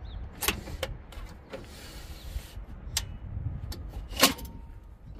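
Ford F-150 Lightning's built-in tailgate step being folded out and its grab-handle pole pulled up: a few sharp plastic-and-metal clicks and clacks, the loudest a single clack about four seconds in.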